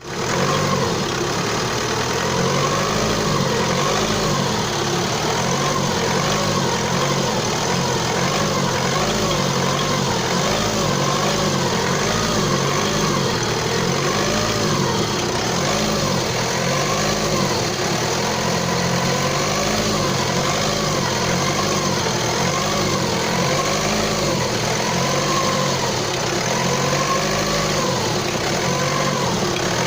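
Opel Astra J engine idling steadily, with a whining tone that wavers up and down in pitch about once a second over the engine's running. This is the engine noise the owner is showing.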